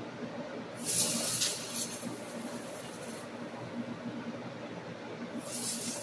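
Aerosol spray can hissing through its straw nozzle onto a voltage regulator rectifier's spade terminals: one spray of about two and a half seconds, then a second starting near the end.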